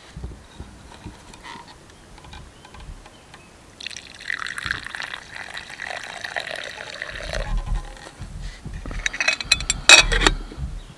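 Coffee pouring in a thin stream into a wooden cup, a steady splashing trickle from about four seconds in for some three and a half seconds. Near the end come a few sharp clicks and a knock.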